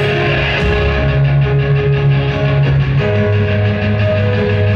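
Live progressive metal band playing: distorted electric guitars, bass and drums come in together at the start over held keyboard chords.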